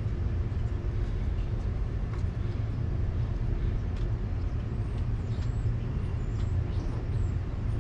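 A motor vehicle engine idling with a low, steady rumble and a steady hum. A sharp knock comes right at the end.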